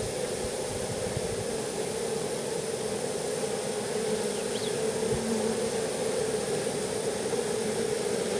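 Honeybees humming steadily around an opened hive, a constant mid-pitched drone over a hiss.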